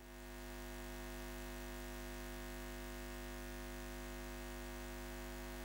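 Steady electrical hum made of several held tones, fading in over about the first second and then holding level.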